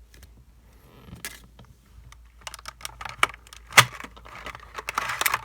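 Box contents and packaging handled by hand: scattered light clicks and knocks that start about two and a half seconds in, with the sharpest knock about a second later and a rustling, crinkling stretch near the end.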